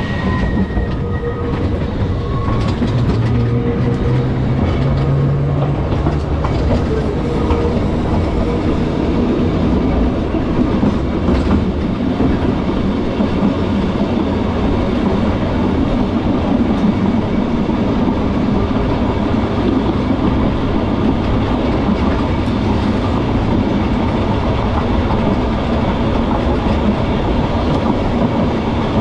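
A vintage Manx Electric Railway electric tramcar running along narrow-gauge track, heard from aboard: a steady rumble of wheels on rails. A low hum rises slightly in pitch a few seconds in.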